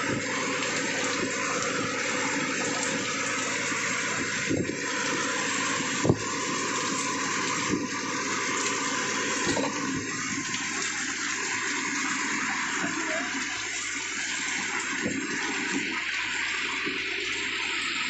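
Heavy rain pouring onto the sea and a fishing boat, a steady dense hiss of rain and water. A few louder drips or knocks break through, the loudest about six seconds in.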